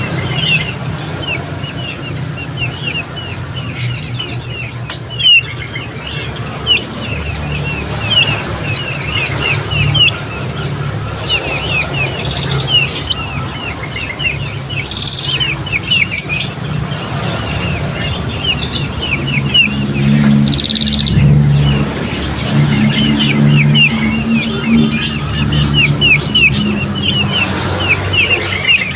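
Small birds chirping in a fast, continuous string of short, high notes, with occasional brighter calls mixed in. A low steady hum runs underneath, louder in the second half.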